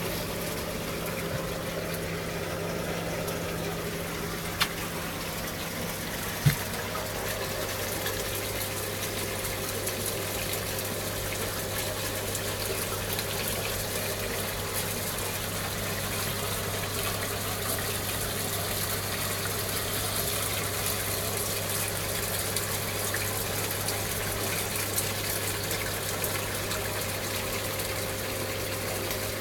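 Steady rush of circulating water with a low pump hum from a marine reef aquarium's filtration and circulation. There is one sharp click about six seconds in, and after it the hum settles lower.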